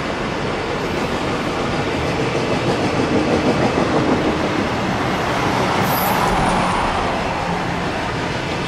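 Freight train running past: a steady rumble of wheels on rail, with a brief high squeal about six seconds in.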